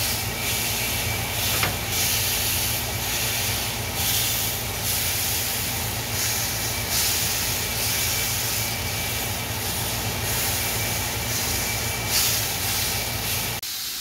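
Steak searing in a hot ridged grill pan, sizzling steadily, with a steady low rumble underneath; the meat is being browned on the outside after its sous-vide cook.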